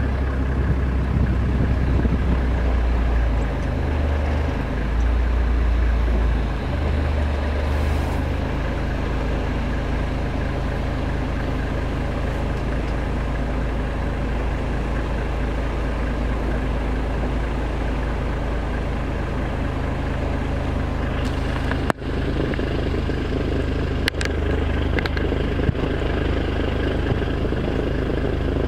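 Car engine running steadily, with wind rumbling on the microphone over the first several seconds and a few light clicks near the end.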